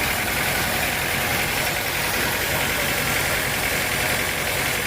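Sawmill machinery running steadily, with a low engine-like hum and an even higher hiss that do not change.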